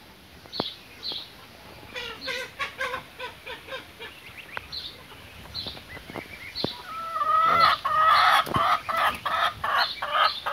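Chickens clucking, with a few high peeps, then from about seven seconds in a hen's loud, repeated cackle: a hen singing before laying an egg.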